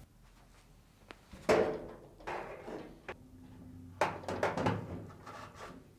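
Samsung dryer drum being set back into the cabinet onto the rear drum rollers: several metal knocks and scrapes, the loudest about a second and a half in and a cluster of them from about four seconds in.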